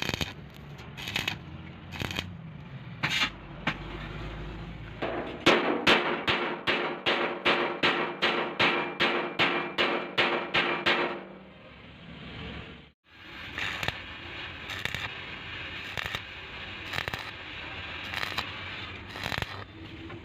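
A chipping hammer rapping steel about four times a second for several seconds, each hit ringing, as it knocks slag off a weld. After a brief drop-out, the steady crackling hiss of a stick-welding arc follows.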